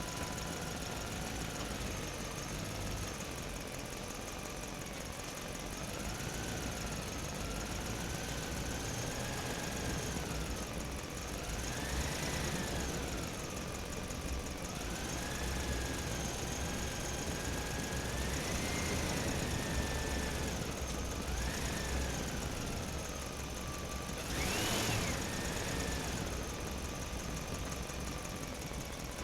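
Truck engine running while driving, its pitch rising and falling several times as the revs change, with the sharpest climb and drop near the end.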